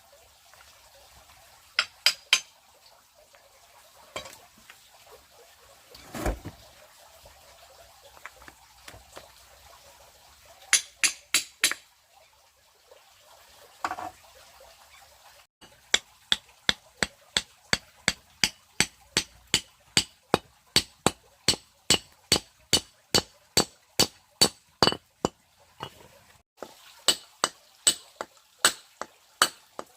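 Sharp knocks with a bright ring: a few scattered groups, then a steady run of about two or three strikes a second for around ten seconds past the middle.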